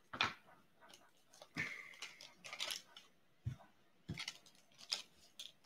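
Foil wrapper of a hockey card pack crinkling and being torn open by hand: irregular crackles, with a longer rip about one and a half seconds in and two dull knocks later on.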